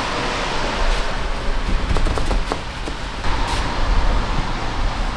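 A rag or paper towel wiping foaming glass cleaner across a car's door window: a rubbing hiss, with a few light ticks about two seconds in and a brief high hiss a little after three seconds.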